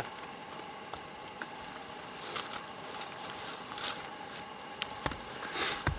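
Steak sizzling in a frying pan over a gas camping stove, with a few brief louder spits and a soft thump about five seconds in.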